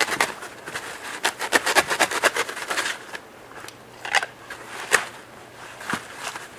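A thick foam pool noodle being cut through: a quick run of crisp snips and crunches for about three seconds, then a few single ones.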